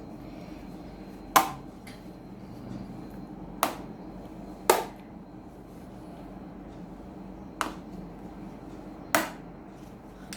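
Fridge magnets clicking onto a metal refrigerator door as game pieces are placed, five sharp clicks a second or more apart.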